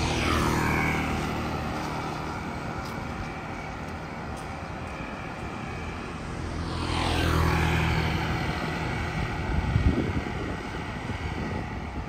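Two engines pass by about seven seconds apart, each with a steady hum whose pitch falls as it goes past. A few low bumps come near the end.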